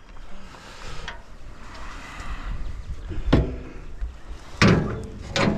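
Thumps and knocks of scrap metal being handled: a sharp knock about three and a half seconds in, then a louder run of knocks and rattles near the end.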